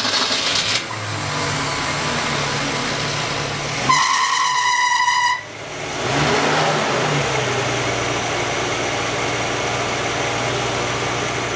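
1965 Ford Falcon's inline-six engine running just after starting, its valve lash freshly adjusted. The revs rise briefly about six seconds in, then it settles to a steady idle. A steady high beep sounds for about a second and a half, about four seconds in.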